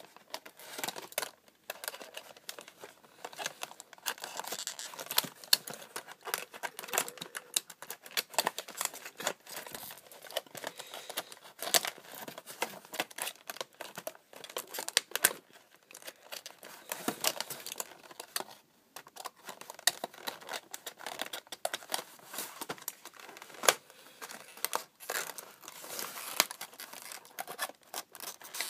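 A clear plastic blister pack on a cardboard backing card being cut and torn open by hand: irregular crinkling, crackling and tearing of stiff plastic and card.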